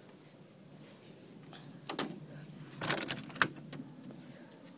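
A few short sharp knocks and clicks, about four in all, spread across the middle of the stretch with the loudest near the end of them, over a faint steady hiss.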